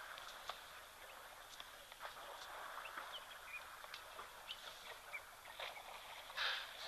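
Faint bush ambience: a steady high hiss with scattered short bird chirps and clicks, and one louder brief rustle about six and a half seconds in.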